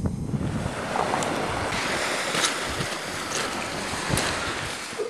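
Waves washing on a pebble beach, with wind on the microphone: a steady rushing hiss broken by a few sharp clicks.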